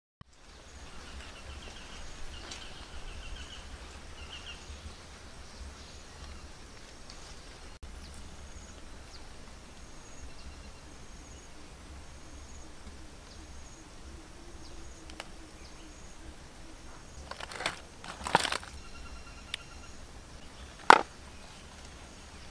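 Outdoor ambience: a steady low rumble with birds chirping in short high calls and trills. Near the end come a few sharp crackles and snaps, the loudest about three seconds after the first cluster.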